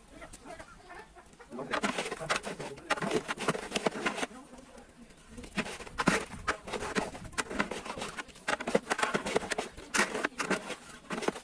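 Long metal ladle stirring chunks of beef in a large aluminium cooking pot, with irregular scrapes and knocks against the pot.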